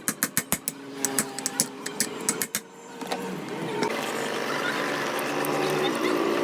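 A fast run of sharp clicks or taps, about five a second, which stops after two and a half seconds; then a steady noisy background with faint wavering tones.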